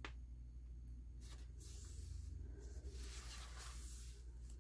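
Faint rustling and sliding of paper under the hands as a glued paper panel is shifted into place on a journal cover, with a small click at the start. A steady low electrical hum runs underneath.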